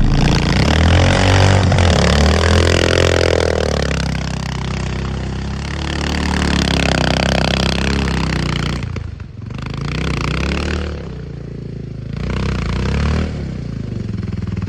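ATV (quad bike) engine running and revving, with its pitch surging up and falling back several times.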